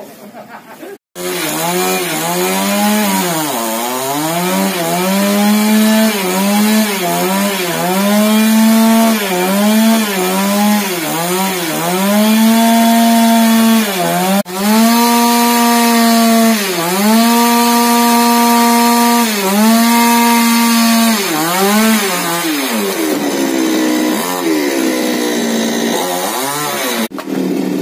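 Chainsaw running at high speed, its engine pitch repeatedly dipping and rising again, typical of cutting through a fallen tree.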